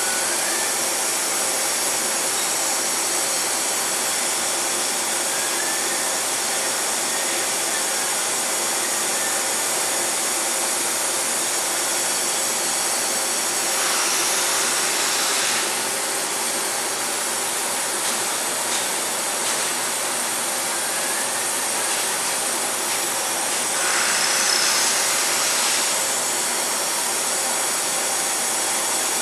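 Deckel Maho DMU 50 five-axis machining center running, a steady mechanical hum and hiss. Twice, near the middle and again near the end, a brighter hiss rises for a second or two.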